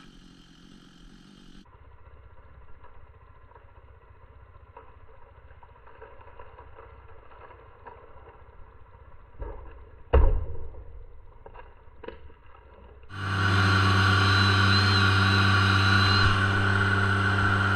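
A heavy thump about ten seconds in. A few seconds later an engine starts up loud, running steadily at a constant speed.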